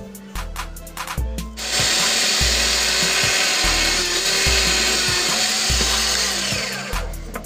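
Drill press driving a fine bit through a thin wooden board: a steady drilling noise that starts about two seconds in and stops near the end, over background music with a steady beat.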